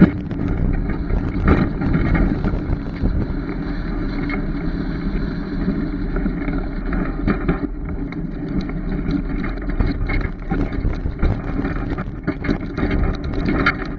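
Wind buffeting an outside-mounted camera's microphone over the rumble of a truck and empty trailer on the road, with scattered small knocks and rattles.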